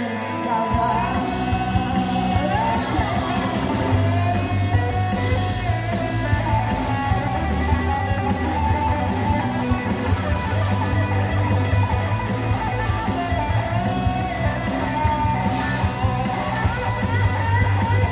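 Rock band playing live: electric guitars over bass guitar and drum kit, with the bass coming in just under a second in.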